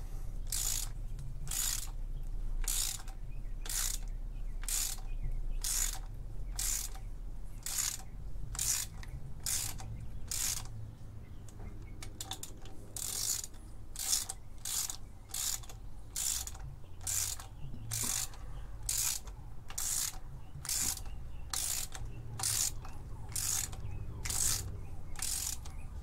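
Hand ratchet clicking on its back-strokes as the flywheel bolts are run down snug, before torquing. The clicking comes in a steady rhythm of short bursts, a little under two a second, with a brief break a little before halfway.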